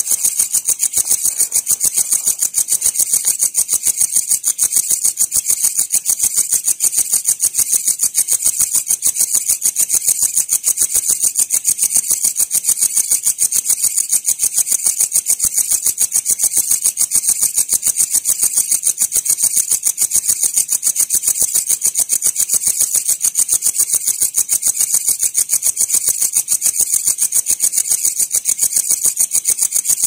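Crickets chirping: a high-pitched, evenly pulsed trill, several pulses a second, holding steady without a break.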